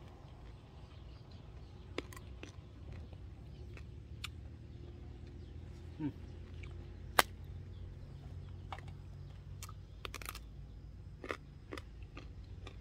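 A person chewing a mouthful of food, with scattered small clicks and crunches and one sharp crack about seven seconds in, over a low steady rumble.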